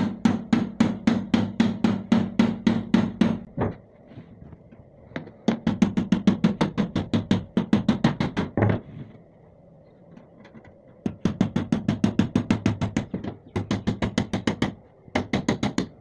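A steel bar rapidly striking a blade to cut around the rim of a sealed sheet-metal tin, about five blows a second, with each blow ringing in the hollow tin. The blows come in four runs of a few seconds, separated by short pauses.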